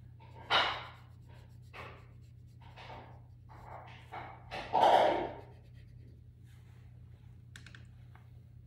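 Colored pencil scratching across paper in a series of short strokes, the loudest about half a second and five seconds in, over a steady low hum.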